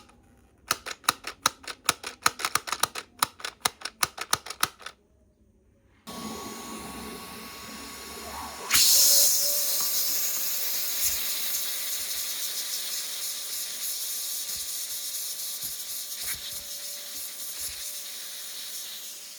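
A rapid run of sharp clicks for about four seconds, then a short silence. A vacuum cleaner then runs with a steady hiss and a faint steady whine, much louder from about nine seconds in.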